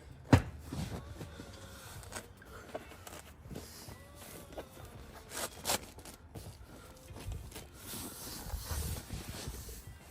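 Handling noises from a faux leather seat cover being fitted to a rear bench seat: rustling and scraping, with a sharp knock about a third of a second in and a few more short knocks and rasps later.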